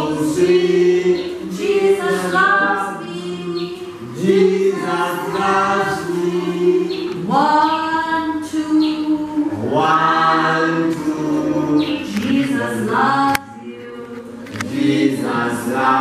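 A group of young children singing together without accompaniment, in short phrases. The singing breaks off briefly about thirteen seconds in, marked by a click, then picks up again.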